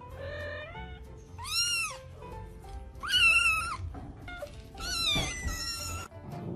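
Kittens mewing, several short high-pitched calls that arch up and down in pitch, the loudest about three seconds in, over background music.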